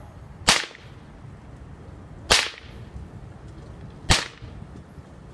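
Five-foot nylon bullwhip cracking three times at an even pace, a little under two seconds apart, each a single sharp crack. These are repeated overhead cracks.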